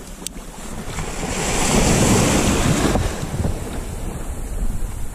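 Wind on the microphone and sea waves washing around a sea kayak, with a louder rush of wind and water for about two seconds near the middle.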